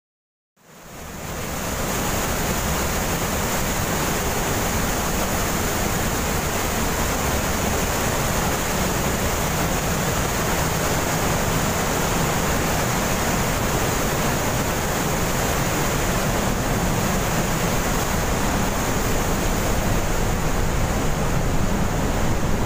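Steady, loud rush of the glacier-fed Trümmelbach waterfalls pouring through the rock inside the mountain, fading in just after the start.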